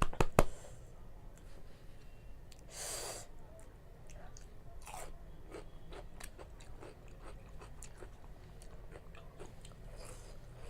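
Close-up chewing of spicy instant noodles, with wet mouth clicks and smacks. A couple of loud clicks come right at the start, and a breathy hiss about three seconds in.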